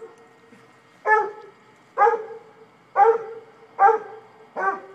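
A dog barking during rough play with another dog: five loud barks about a second apart.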